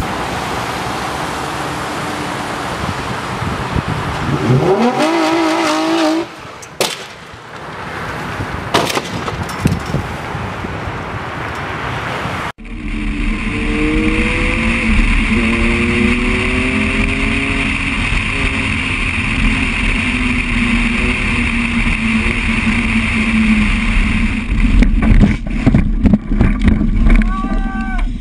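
A car engine revs with a rising, wavering pitch over road noise on a snowy street. Then, inside a BMW, the engine pulls up through the gears under heavy wind noise. Near the end the car runs off the road and crashes, with a series of thuds and crunches.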